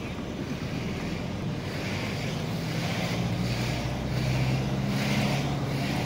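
Car driving along a road, heard from inside: a steady low engine hum with tyre and wind noise that swells and fades every second or so.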